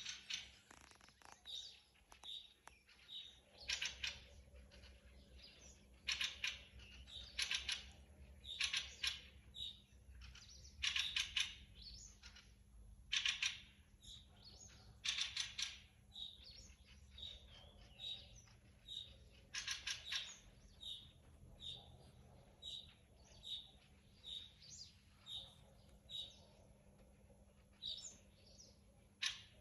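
Thrushes singing and calling in woodland. A run of short, high, repeated notes is broken every couple of seconds by louder, harsh chattering calls.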